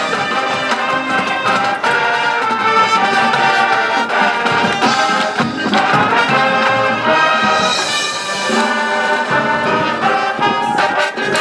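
Marching band brass section playing a loud, sustained passage, with the front ensemble's mallet percussion underneath.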